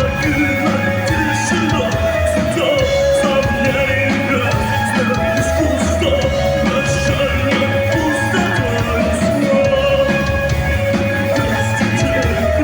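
Live rock band playing loud and steady, with electric guitar and drums.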